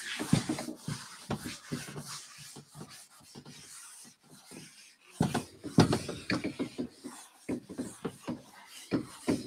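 Eraser wiping a chalkboard in quick back-and-forth rubbing strokes, loudest about five to six seconds in.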